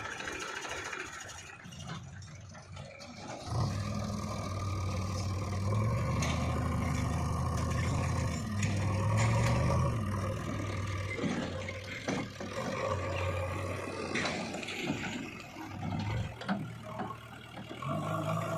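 Heavy diesel engine of an earthmoving machine working under load, revving up and down, with scraping and clattering knocks mixed in. It comes in strongly a few seconds in, dips near the end, and picks up again.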